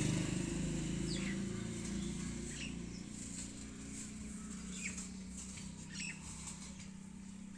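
A vehicle engine's steady hum fading away, with a few short bird chirps over it.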